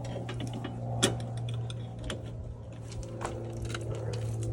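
Scattered light clicks and ticks, with one sharper click about a second in, over a steady low hum.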